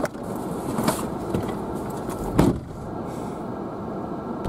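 Car passenger door opened and slammed shut. The slam comes about two and a half seconds in and is the loudest sound, over steady background noise.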